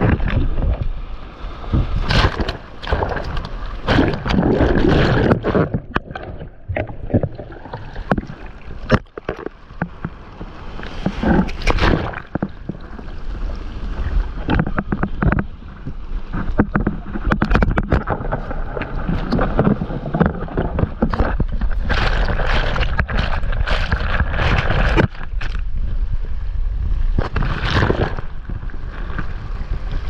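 Broken surf rushing and splashing around a stand-up paddleboard and a camera close to the water, with many sharp splashes and knocks, over a low rumble of strong wind on the microphone.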